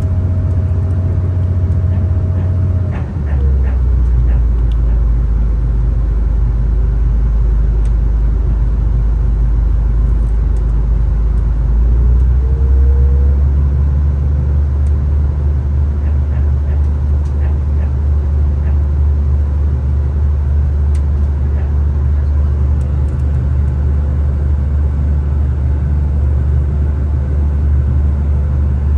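Inside a moving V/Line VLocity diesel railcar: a steady low drone from the diesel engine and running gear. Its pitch drops about three seconds in and rises again about twelve seconds in.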